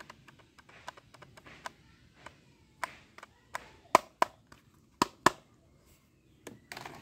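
Sharp plastic clicks at uneven intervals from a black plastic toy pistol being handled and its trigger pulled, the loudest about four and five seconds in.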